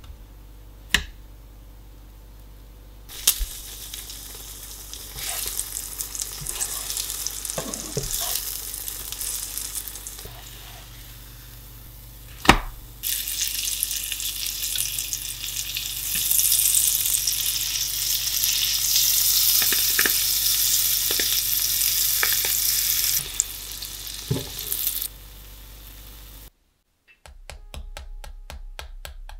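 Butter and brown sugar sizzling in a frying pan around a slice of frying bread, with a few sharp clicks of a utensil against the pan. The sizzle starts about three seconds in, grows much louder after a spoonful of butter and sugar goes in, and stops a few seconds before the end.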